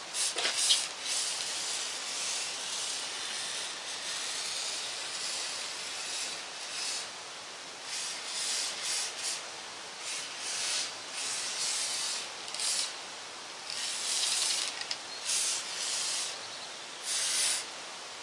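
Aerosol spray can hissing, aimed at a chainsaw bar and chain: one longer spray near the start, then a series of short bursts with pauses between them.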